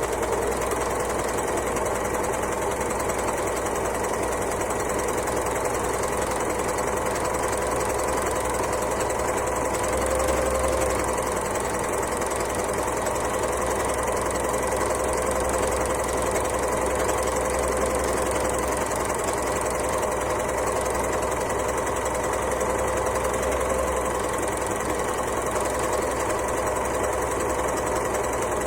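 Overlocker (serger) running continuously at a steady speed, a fast even mechanical chatter with a steady hum.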